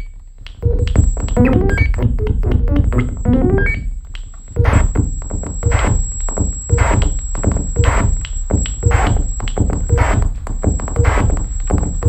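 Improvised electronic music from hand-built breadboard synthesizer circuits: a rapid stream of low pulses and short stepped tones. It dips briefly at the start and again around four seconds in, then comes back denser, with a steady high-pitched whine held over it.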